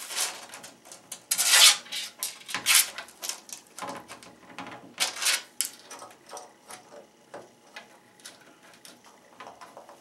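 African grey parrot's claws and beak scraping and knocking on a wooden door and its peg rack as it climbs. An irregular string of clicks and scuffs, loudest between one and two seconds in and again about five seconds in.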